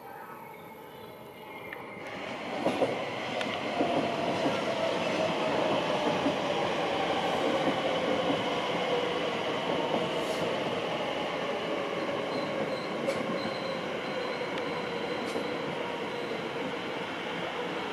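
Elizabeth Line Class 345 electric multiple unit running in alongside the platform, with a few sharp knocks from the wheels near the start. A steady rumble follows, with a whine that falls slowly in pitch as the train slows.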